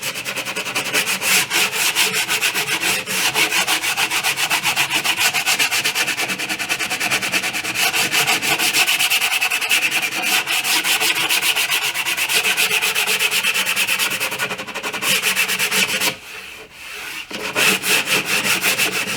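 Edge banding on a cabinet panel being hand-sanded to a rounded edge with quick back-and-forth strokes, breaking off briefly about sixteen seconds in before carrying on.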